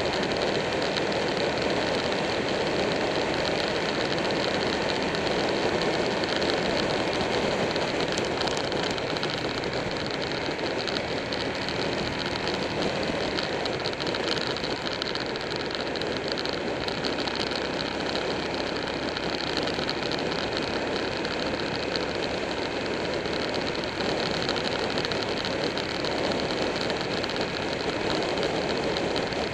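Buell 1125R's V-twin engine running steadily at road speed, mixed with heavy wind and road noise on a camera mounted on the moving motorcycle.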